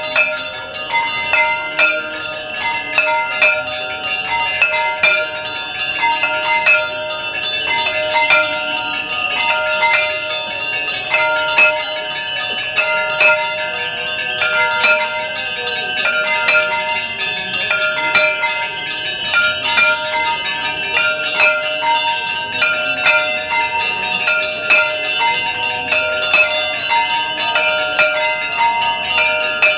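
Hindu temple bells struck rapidly and without pause during aarti, their ringing tones overlapping into a continuous clangour.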